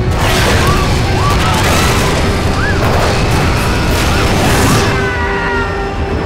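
Film sound effects of an airliner breaking apart in flight: a heavy low rumble with crashing and tearing debris, and passengers screaming, under dramatic film music.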